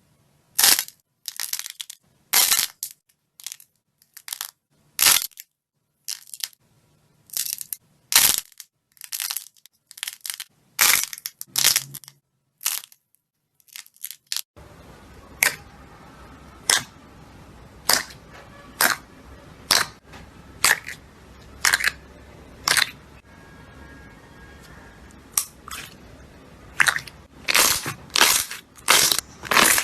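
Slime being squeezed and poked, giving short crackling, popping bursts about once or twice a second.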